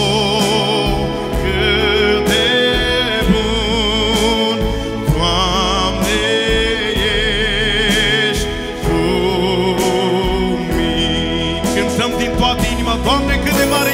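A man singing a Christian worship song with strong vibrato into a handheld microphone, over instrumental accompaniment.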